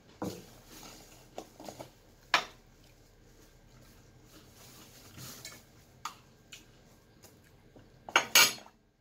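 Plates and tableware clinking and knocking on a table during a meal: scattered light clicks, a sharp knock about two seconds in, and a louder clatter near the end.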